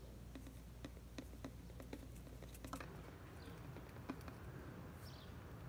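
Sea salt grains poured from a small tube into a plastic water bottle: a faint, irregular patter of small ticks as the grains hit the bottle.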